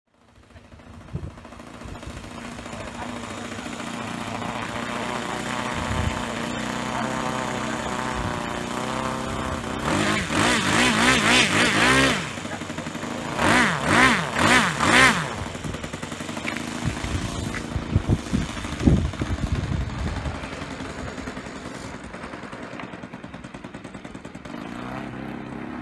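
Saito FG-21 single-cylinder four-stroke gasoline engine on an RC model plane, with a 16x8 wooden propeller, idling, then revved up twice, about ten and fourteen seconds in, before settling back to a low-throttle run as the plane taxis.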